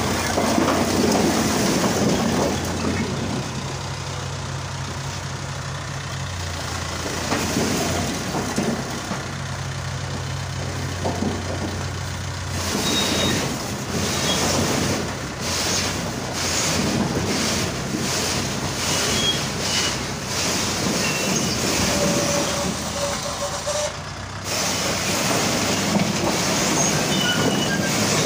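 Mahindra 555 DI tractor's diesel engine running steadily, with a low even hum. About twelve seconds in, irregular rough noise partly covers the hum.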